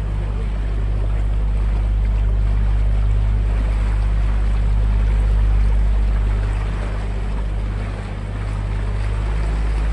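Open canal tour boat under way: its motor running with a steady low hum, and water rushing and splashing in the wake.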